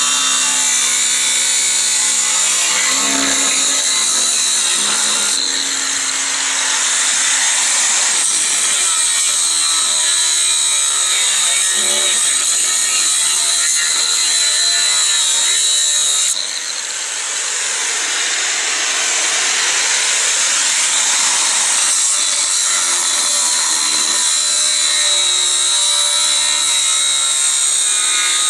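Angle grinder with its disc cutting into 6 mm steel plate: a steady high whine over dense grinding noise, easing off briefly twice as the load on the disc changes.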